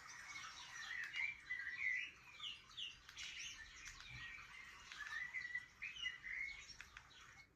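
Small songbirds chirping and singing in a dense stream of quick, rising and falling calls, as played back from a bird video for a cat. The birdsong cuts off suddenly at the end.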